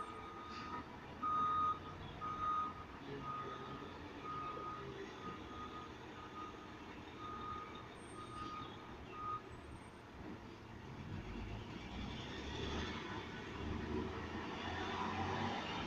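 Garbage truck's reverse alarm beeping about once a second for some eight seconds, then stopping. Over the last few seconds the truck's diesel engine rumble grows louder.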